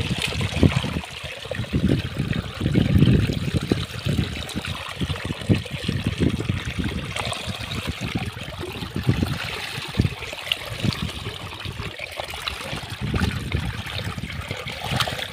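Muddy water trickling and flowing, with irregular splashing and sloshing as hands and an arm dig into a shallow flooded hole.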